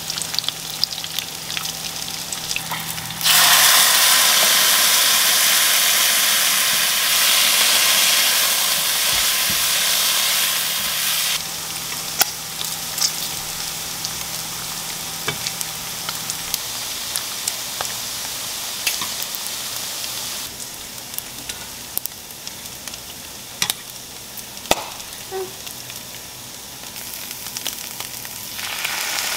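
Bacon strips sizzling as they fry in a pan, with scattered sharp clicks of metal utensils against the pan. The sizzle swells much louder for several seconds in the first half, then settles back to a steady hiss.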